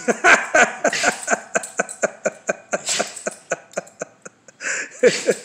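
A man laughing in quick, even pulses, about five a second, for some four seconds.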